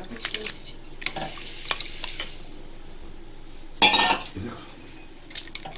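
A metal spoon stirring kurma in a cooking pot, with scattered clinks and scrapes against the pot and one louder clank about four seconds in.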